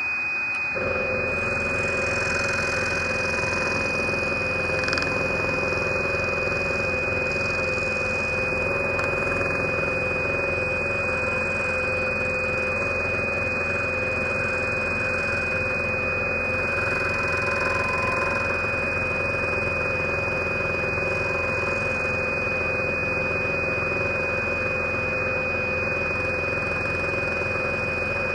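Large scroll saw running steadily, its fine No. 2 blade cutting wood with a fast, even reciprocating chatter and a constant high whine.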